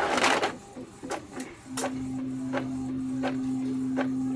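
Epson L3110 inkjet printer running after a power-supply replacement. It opens with a short rushing noise, goes quiet, and then settles about two seconds in into a steady motor hum with a sharp click roughly every half second as it works through a page.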